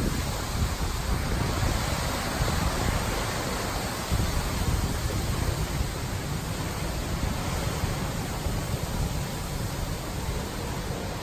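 Typhoon-force wind gusting over the microphone: a continuous rushing noise with a heavy, uneven low rumble of wind buffeting that swells and eases with the gusts.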